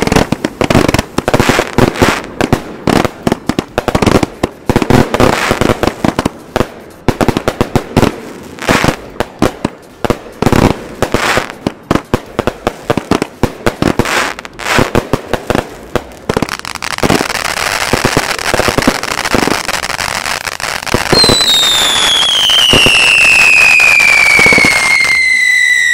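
Consumer fireworks finale of XL aerial cakes and 6-inch canister shells firing and bursting: dense, rapid bangs for about sixteen seconds that then run together into a continuous loud crackle. A long whistle falling steadily in pitch sounds through the last five seconds.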